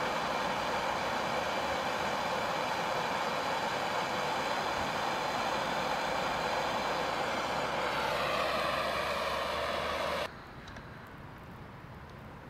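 Hand-held propane torch burning with a steady hiss as its flame plays on a thermoplastic PPE cable jacket. The hiss cuts off abruptly about ten seconds in, leaving only a faint background.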